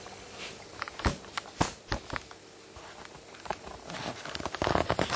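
Handling noise: scattered sharp knocks and taps, then a burst of rapid clattering about four seconds in.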